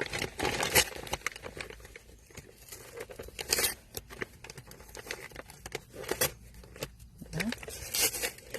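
A shipping package being torn open and its packaging crumpled by hand: scattered crinkles, scratches and rips, with louder tearing bursts about a second in, at three and a half seconds, at six seconds and near the end.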